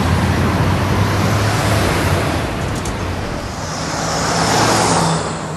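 Cartoon street-traffic sound effect: car engines running steadily, with a car passing by and swelling up about four and a half seconds in.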